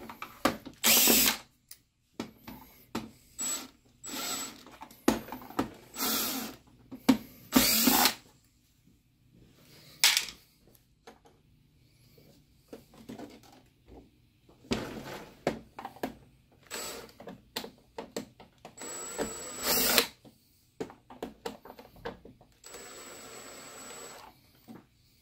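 Cordless electric screwdriver running in short bursts, a dozen or so quick spins of a half second to a second, with a longer steady run near the end, as it backs screws out of the plastic base of an LCD projector.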